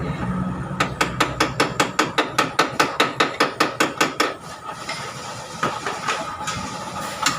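A fast, even run of sharp taps or clicks, about five a second for roughly three seconds, followed by a few single taps.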